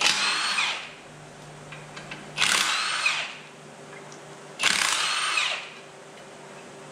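Cordless impact wrench run in three short bursts of under a second each on bolts at the flywheel end of a diesel engine block, its motor pitch sweeping as it spins up and stops.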